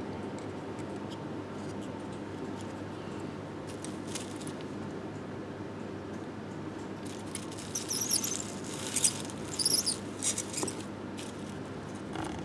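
Plastic toy pieces squeaking and scraping as they are handled: a cluster of short, high squeaks in the second half, over a steady low hum.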